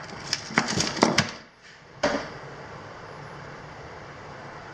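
A quick run of light clicks and knocks from parts being handled, then one more click about two seconds in, followed by a steady faint hum.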